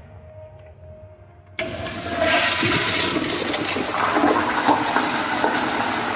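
A 1990s 3.5-gallon Kohler Kingston Waterguard toilet flushing through its exposed flush valve. A sudden loud rush of water breaks in about a second and a half in and keeps going as the bowl flushes.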